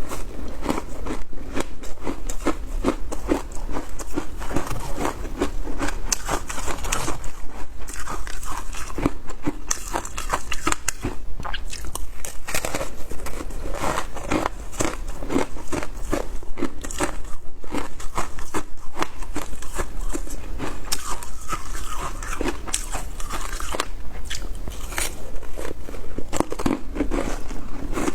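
Frozen matcha ice being chewed close to the microphone: a steady run of sharp, irregular crunches as the ice cracks between the teeth.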